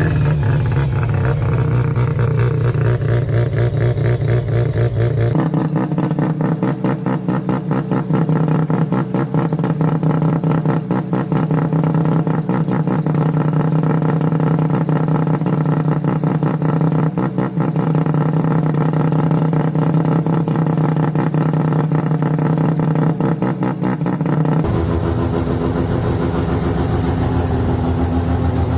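Mazda 12A rotary engines running at a steady idle with a rapid, choppy exhaust pulse. The sound changes abruptly about five seconds in and again near the end, as a different engine takes over.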